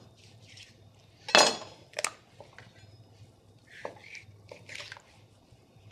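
A whole raw bird being turned over and handled on a kitchen cutting board: a sharp knock with a short ring about a second and a half in, a click half a second later, then soft scattered handling noises.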